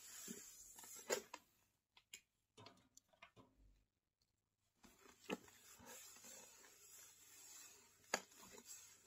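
Faint, close-up scratching and handling of a corrugated cardboard shoe box, with a few sharp taps: about a second in, midway and near the end, and a short pause around four seconds in.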